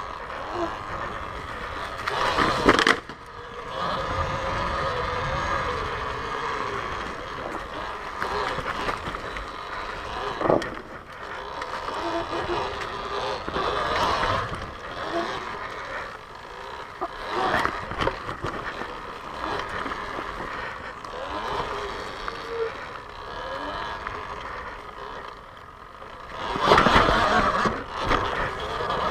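Talaria XXX electric dirt bike ridden over rough ground: the electric motor's whine rises and falls with the throttle over the chain drive and knobby tyres on dirt. Sharp knocks and rattles from bumps come now and then, with a louder rough stretch near the end.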